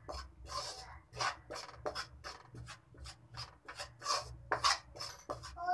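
Spoon scraping and stirring water chestnut (singhara) flour in a stainless steel kadhai, about three scraping strokes a second, as the flour is slow-roasted on a low flame.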